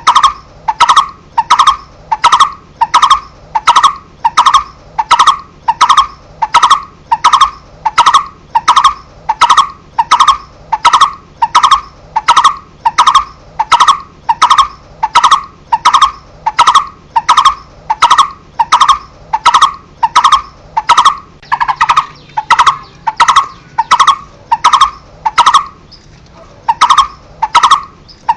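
Coppersmith barbet calling: a long, even series of hollow, single-pitched "tuk" notes, about one and a half a second, with a brief pause near the end.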